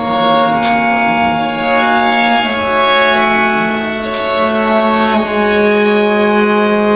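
String quartet of violins and cello bowing long sustained chords, the harmony shifting to new held notes about two and a half seconds in and again about five seconds in.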